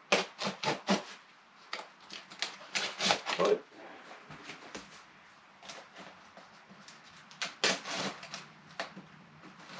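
Knife cutting through the packing tape and cardboard of a shipping box: a run of short, sharp scratches and rasps, close together for the first few seconds, then sparser, with a longer rasp near the end.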